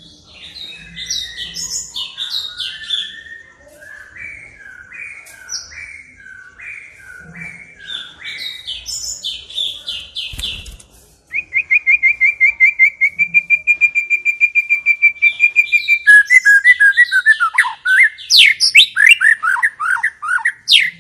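White-rumped shama (murai batu) song: varied clear whistled phrases, including a series of short downward-sliding notes about twice a second. About eleven seconds in, it breaks into a louder rapid trill of repeated notes, then into fast, steeply falling whistles.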